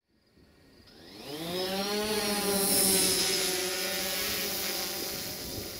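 A motor or engine spinning up: a pitched hum that rises for about a second, then holds steady, with a loud hiss over it.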